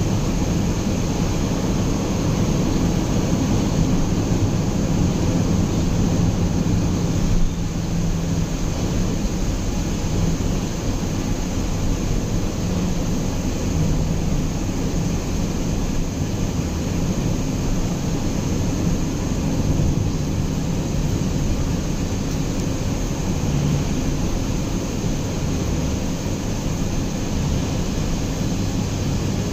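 Steady low road and engine noise heard from inside a car cruising on a highway.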